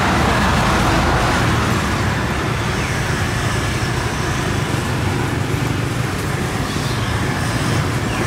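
Minced beef boiling in its frothy juices in a pan over a burner, a steady hiss and roar.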